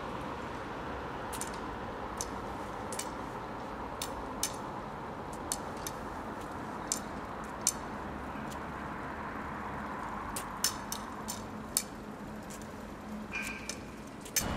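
Steady hum of street traffic, with scattered light, irregular clicks from boot heels and a white cane tip on wet pavement.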